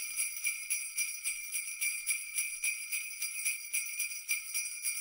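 Sleigh bells jingling, shaken in a steady rhythm of about three shakes a second.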